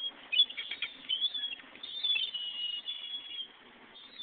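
Young birds giving high, squeaky begging chirps while being fed by a parent: quick bursts of calls, then a longer run of thin, steady squeaks.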